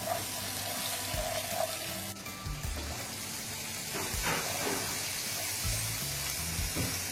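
Garlic and freshly added sliced onions sizzling in hot oil in a wok, stirred with a wooden spoon.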